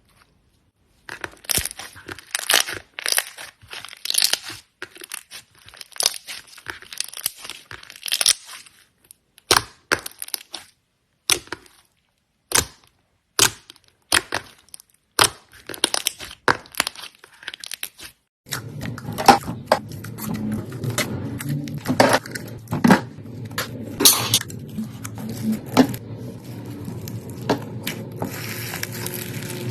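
Slime being pressed and squeezed, giving a long run of sharp crackles and pops. From about 18 seconds in, a steady low hum runs beneath the crackling.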